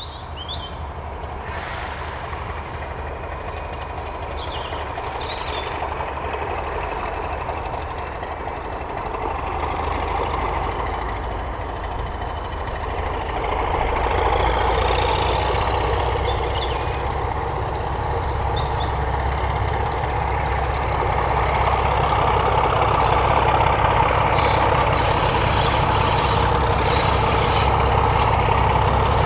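British Rail Class 31 diesel locomotive 31430, with its English Electric V12 engine, approaching under power. Its steady engine note builds louder, with a step up about halfway through.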